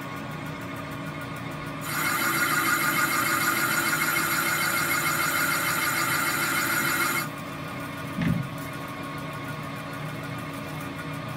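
Metal lathe running while a boring bar cuts inside the cast aluminium compressor housing of a BMW N54 turbo, throwing stringy chips. The cutting noise gets louder and higher about two seconds in, drops back about seven seconds in, and a short low knock follows.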